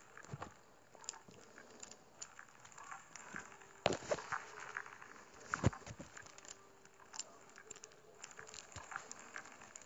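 Faint crackling with scattered clicks, two sharper clicks about four and six seconds in, over a faint steady hum.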